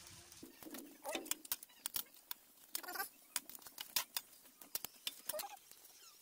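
Spring rolls frying in hot oil in a steel wok, the oil crackling and popping in many short sharp clicks, with a metal spatula scraping and clinking against the wok as they are turned. Three brief wavering calls sound at intervals.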